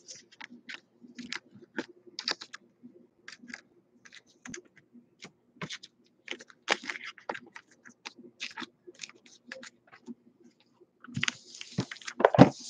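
Trading cards being flipped and slid one after another in the hands, an irregular run of soft clicks and snaps. Near the end comes a louder burst of card-stack handling.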